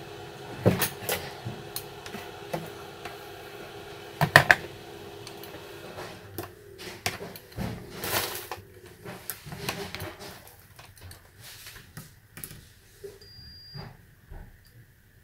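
Small tools clicking and clattering on a tabletop as tweezers are handled and a digital multimeter with its test leads is set down, the sharpest knocks near the start. About two seconds before the end, the multimeter gives a short high beep as its probes touch the circuit board.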